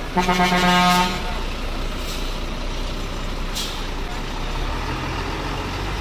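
A bus horn sounds one steady blast of about a second at the start, over the low rumble of idling bus engines. A short hiss comes a little past halfway.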